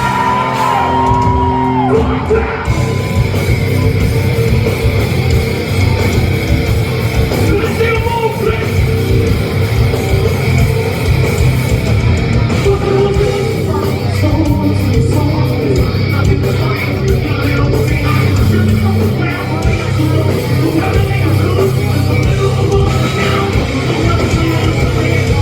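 Heavy rock band playing live: distorted electric guitars, bass and drums with yelled vocals, loud and steady, ringing in a large hall.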